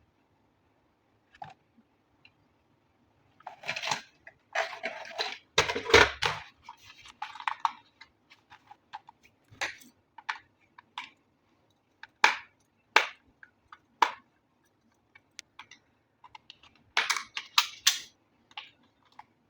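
Hands unboxing toy RC cars: bursts of rustling and scraping packaging, a thump about six seconds in, and scattered sharp clicks and knocks of plastic parts.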